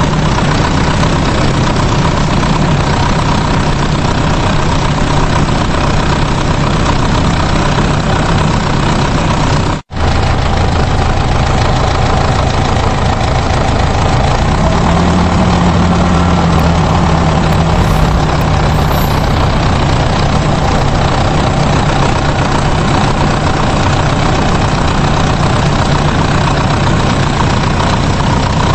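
Steady running engine sound, like a heavy vehicle idling, with a low hum. It cuts out for an instant about ten seconds in.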